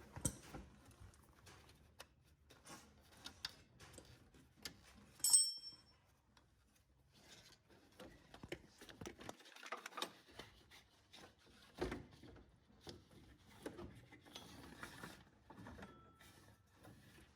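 Hands working an old serpentine drive belt off a Toyota 2GR-FE V6's pulleys and around the water pump bolts: scattered soft clicks and scrapes, with one sharp metallic clink about five seconds in.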